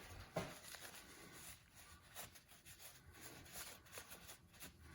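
Near silence with a few faint scattered clicks and light rubbing: small gear parts being handled.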